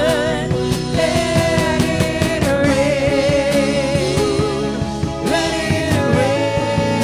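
Live worship band playing a song: several voices singing with vibrato over drums, electric guitars and keyboard.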